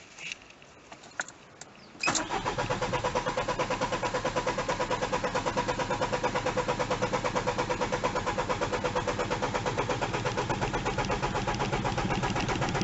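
Citroën Synergie's 1.9 XUD9 four-cylinder turbo-diesel turned over on the starter motor without firing, its fuel solenoid disconnected, to build oil pressure after an oil change. About two seconds in the starter cranking begins, a steady rhythm of about eight pulses a second that stops near the end.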